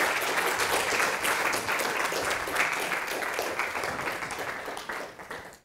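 Lecture audience applauding, a dense patter of many hands clapping that slowly thins and then cuts off abruptly near the end.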